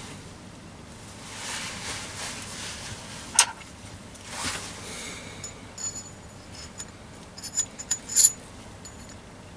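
Steel arbor and small tools handled by hand. There are two soft scrapes, a sharp metallic clink about three and a half seconds in, and a run of small clicks and clinks with brief high rings near the end.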